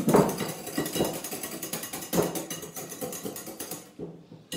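Wire balloon whisk beating cream in a cut-glass bowl: a fast, rhythmic clatter of the wires against the glass as the cream is whipped until it firms up. The whisking stops for about half a second near the end, then starts again.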